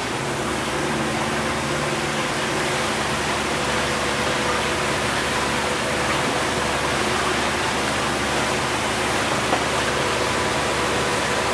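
Outboard motor running steadily with the boat under way, under a constant rush of water and wind over the hull.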